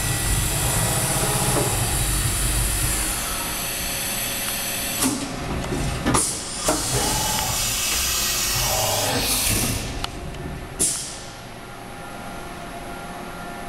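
Machine-shop background noise: a steady low rumble with hiss, broken by several short sharp hisses or knocks about five to seven seconds in and again near eleven seconds, after which it drops quieter.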